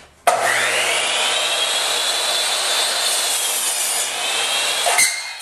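Compound miter saw starting up with a rising whine and cutting a 45-degree angle through a wooden corner brace, then stopping sharply about five seconds in.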